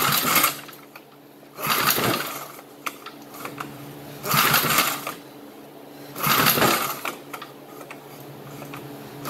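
Vintage Briggs & Stratton 3 HP flathead engine pull-started four times by its recoil starter, about every two seconds. Each pull is a short rasp of the rope and the engine cranking over, and the engine does not catch.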